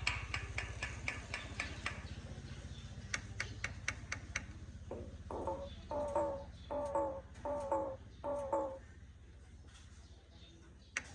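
Common myna calling: a run of sharp clicking notes, then five repeated calls less than a second apart, and a few more clicks near the end.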